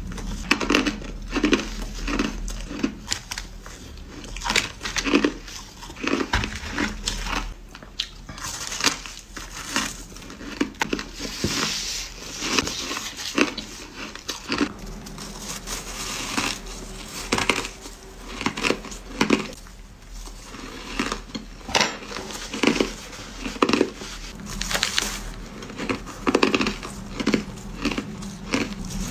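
A person biting and chewing hard crushed ice, close up: an irregular run of loud, crisp crunches, several a second at times.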